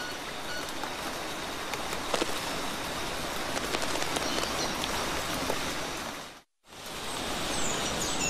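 Steady rain falling in a tropical forest: a dense, even hiss with a few sharper drips. It cuts out for a moment about six and a half seconds in, then carries on as before.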